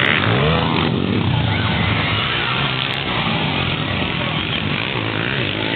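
Motocross dirt bike engines revving, their pitch rising and falling as the bikes race over the track.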